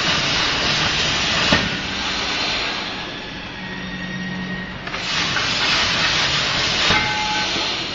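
CNC plasma cutter's torch hissing steadily as it cuts, louder for the first second and a half and again from about five seconds in, over a low steady hum.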